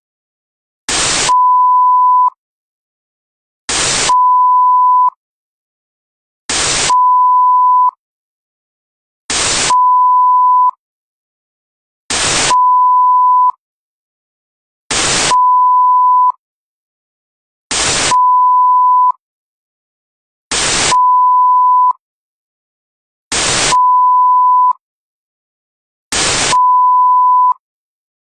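A technical-difficulties broadcast sound effect repeating about every three seconds: a short burst of static, then a steady 1 kHz test-tone beep lasting about a second, then a pause. It plays about ten times.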